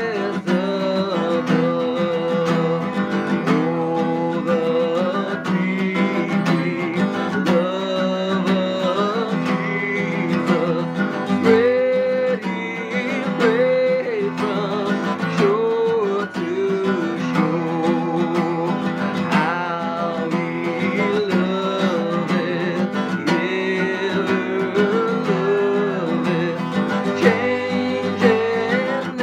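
Acoustic guitar playing a hymn tune, steady chords with a melody line carried over them.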